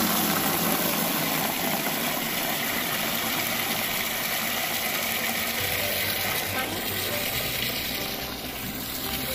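Water running from a tap into a plastic bucket: a steady rushing hiss as the bucket fills.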